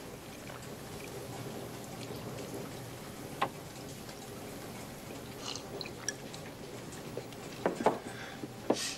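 Quiet room with a faint steady hum and a few brief clinks and knocks of whiskey glasses handled on a wooden table, the loudest pair just before the end.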